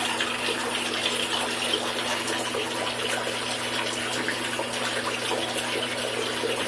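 Water running steadily from a bathtub tap into shallow water in the tub.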